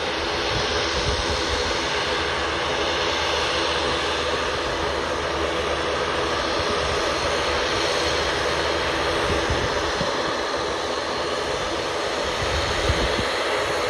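Twin-engine turboprop airliner's engines running steadily at low power as it taxis on the runway: an even propeller-and-turbine drone that neither builds nor fades.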